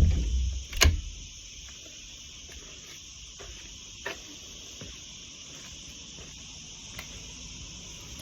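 Steady high-pitched chorus of insects buzzing, with a sharp knock about a second in and a few faint ticks after it.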